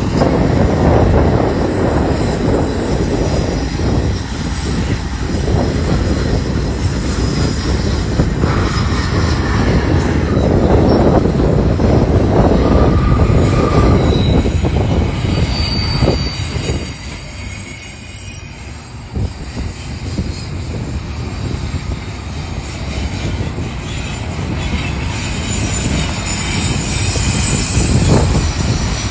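Double-stack intermodal freight train rolling past close by: a steady rumble and clatter of steel wheels on rail, with thin high-pitched wheel squeal partway through.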